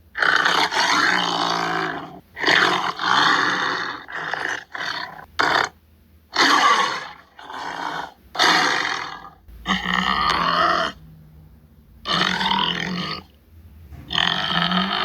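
Tiger roaring and grunting in a series of about a dozen short harsh calls, each roughly a second long, with brief pauses between them.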